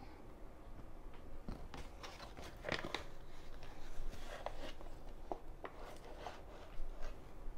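Paper flour bag crinkling and rustling as it is handled over a plastic bowl and flour goes into the bowl, with irregular short crackles, the loudest about three seconds in.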